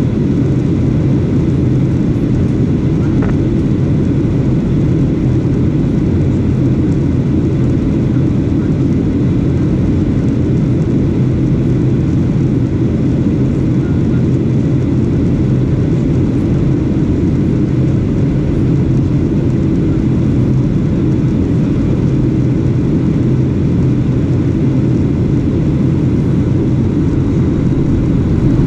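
Steady cabin noise of a Boeing 737-800 in flight, heard at a window seat over the wing: an even, low rumble of airflow and its CFM56 jet engines.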